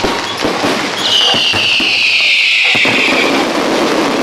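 Aerial fireworks going off: repeated shell bangs and crackling. About a second in, a high hissing whistle starts and slides slowly lower in pitch for about two seconds.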